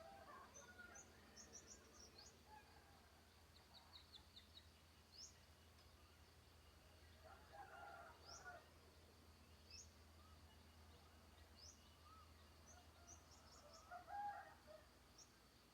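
Faint rural ambience: a small bird repeatedly gives short, high, rising chirps, while a rooster crows a few times, about halfway through and again near the end.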